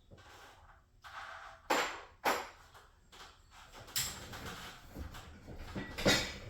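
A series of knocks and clanks during garage door spring work, with two loud ones about two seconds in and another near the end.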